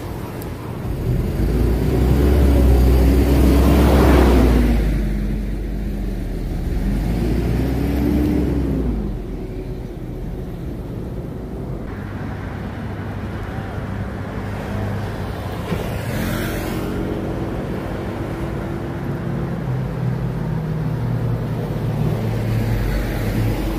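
City bus pulling past close by with a loud low rumble and a whine that rises and falls, then steady traffic noise from buses and cars, with one car swishing past about two-thirds of the way through.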